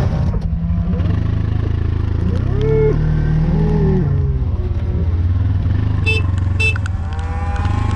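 Cattle mooing over the steady running of a vehicle engine, with long bending moos a few seconds in and again near the end. Two short high-pitched beeps come about half a second apart around six seconds in.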